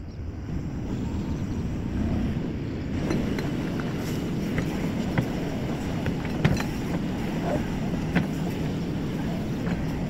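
JCB 4CX backhoe loader's diesel engine running steadily under work as the machine scrapes and pushes soil with its front bucket, with a few sharp knocks, the loudest about six and a half seconds in.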